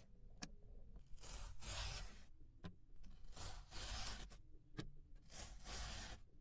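Clay being worked in repeated strokes: three noisy strokes of about a second each, roughly two seconds apart, with short sharp clicks between them.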